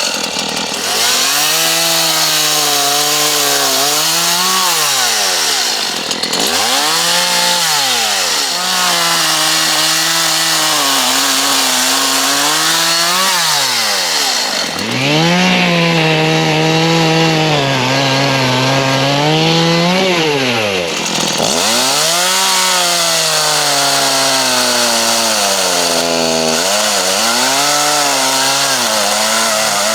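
Two-stroke chainsaw cutting up storm-felled branches. Its engine revs high and holds a lower, steadier pitch under load while cutting. The throttle drops back and revs up again about five times between cuts.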